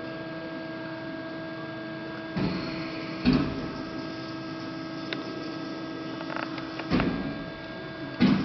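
An LVD PPCB 150-ton CNC hydraulic press brake's pump unit running with a steady hum, broken by a few short clunks from the machine, the loudest about three seconds in, about seven seconds in and near the end.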